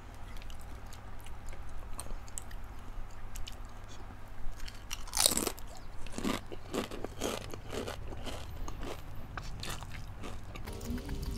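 Close-up crunching of a crunchy snack dipped in cheese sauce being bitten and chewed. A loud crunch comes about five seconds in, then a run of crunchy chews, about two a second, for several seconds.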